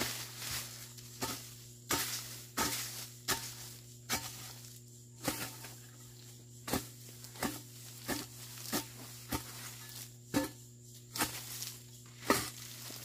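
A hand hoe chopping into weeds and soil with steady, rhythmic strokes, about three every two seconds.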